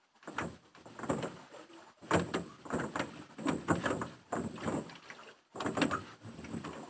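Rowboat oars working in their oarlocks and pulling through the water, a repeated knocking sound roughly every three-quarters of a second.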